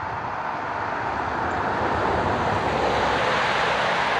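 A car going by on the road: a steady rush of tyre and road noise that builds over the first two to three seconds and then holds.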